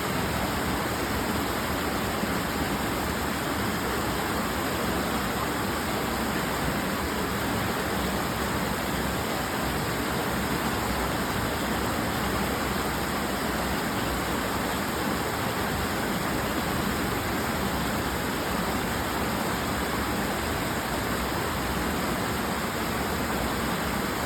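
Creek water rushing steadily, an even unbroken roar with no breaks.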